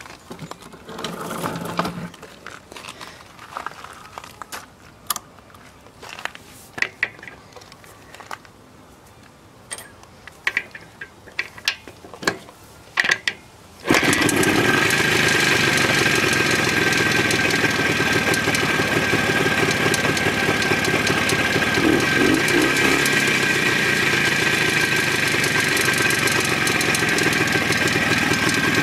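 A few scattered clicks and knocks, then about halfway through the Jawa 634's 350cc two-stroke twin starts abruptly and settles into a steady idle. The knock at idle is what is being investigated: it goes away when riding and does not change with the spark plugs out, and the owner wonders whether it is the primary chain.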